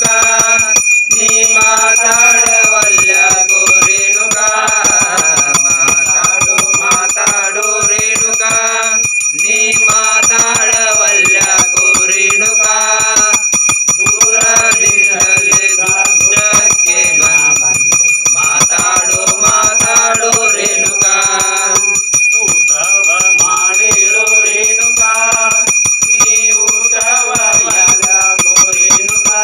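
A puja hand bell rung rapidly and without a break, ringing steadily over a Kannada devotional song to Renuka Yellamma.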